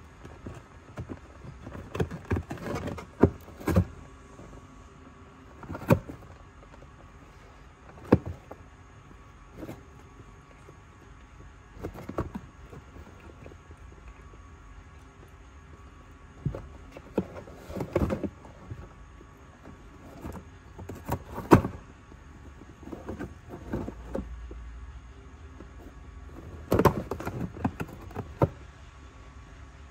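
A cat biting and clawing at the corner of a cardboard box: irregular scraping, crinkling and sharp taps of cardboard in short clusters, with quieter gaps between.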